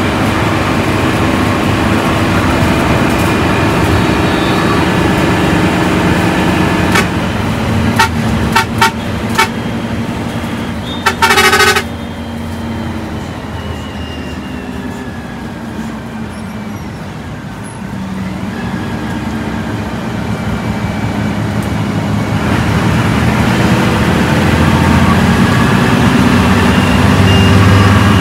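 Bus diesel engine running, with a few short sharp sounds about eight seconds in and a horn blast of about a second a little later. The engine then eases off and builds up again, rising in pitch, near the end.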